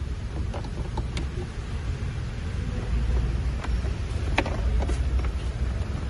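Light clicks and knocks of a car's cabin air filter and its plastic housing being handled, a few scattered ticks over a steady low rumble.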